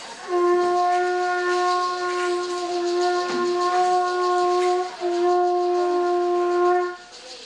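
Conch shell trumpet sounded in two long blasts on one steady pitch. The first lasts about four and a half seconds and the second, straight after it, about two.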